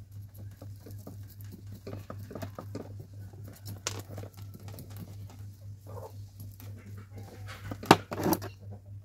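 Old potting soil being scraped and picked out of a bonsai's root ball with a small hand tool: a continual patter of fine scratches and crumbling soil dropping onto the tabletop, with two louder knocks near the end. A steady low hum runs underneath.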